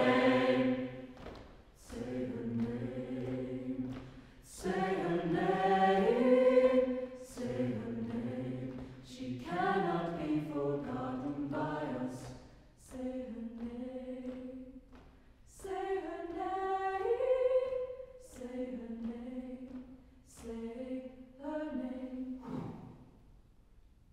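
A mixed chamber choir singing unaccompanied in short phrases broken by brief pauses. The last phrase ends a little before the close.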